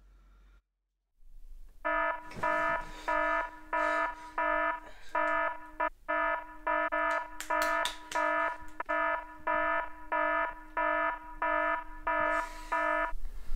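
Wrist-worn fitness device's alarm sounding a buzzy electronic beep over and over, about three beeps every two seconds, starting about two seconds in and stopping just before the end.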